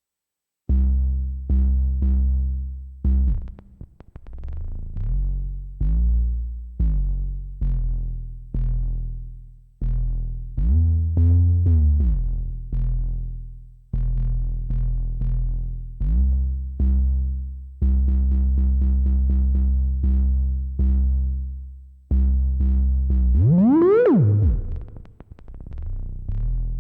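Heavy bass and synth notes from Maschine played one at a time from pads, each hit decaying, starting after a short silence. Twice the pitch swoops up and back down, once near the middle and once, more sharply, near the end.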